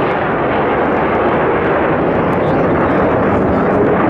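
Fighter jet passing low overhead, its jet engines making a loud, steady rushing noise.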